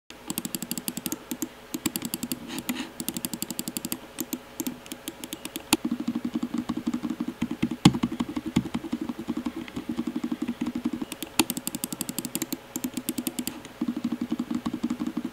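Buttons of an Elephant Sasquatch (WEM-1021) gaming mouse clicked rapidly and repeatedly right next to a microphone, in fast runs with short pauses between them. These are its quiet switches, sold as more silent than traditional Omron switches.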